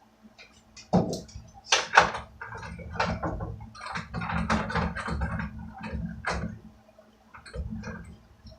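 Knocks, scrapes and rattles of a wooden workbench frame being worked on by hand while a bolt is pushed through it, with two sharp knocks about one and two seconds in.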